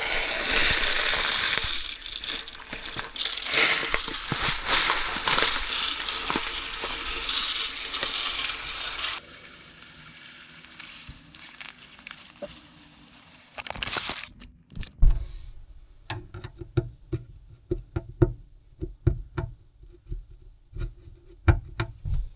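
Dishwasher salt being poured into the dishwasher's salt reservoir: a long, grainy hiss of granules running for about fourteen seconds, thinning about nine seconds in. Then a scatter of short clicks and knocks.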